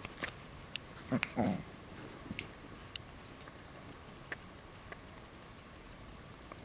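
West Highland White Terriers play-wrestling: a short, low dog vocalization about a second in, with soft scattered clicks and scuffles of the play.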